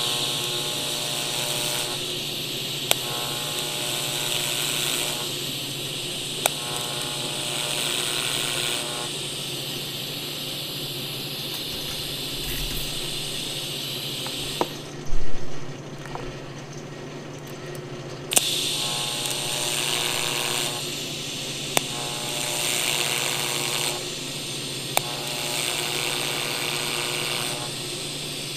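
TIG welding arc hissing with a buzz. It runs for about fifteen seconds, stops, and after a brief loud knock starts again for about nine seconds, over a steady low hum.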